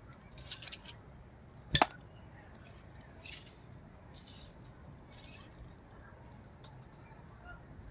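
A single sharp knock about two seconds in, amid light scraping and rustling as pieces of wood are handled.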